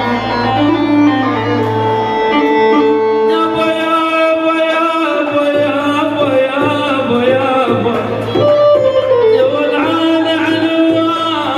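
Iraqi dabke music played loud and without a break: a melody line on held notes, with singing that bends in pitch entering about four seconds in.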